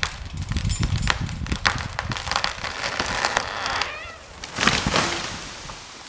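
A large tree being felled: the trunk cracks and pops repeatedly as its uncut wood tears, with a short creak about four seconds in, then the crash of the trunk and branches hitting the ground just before five seconds, fading away.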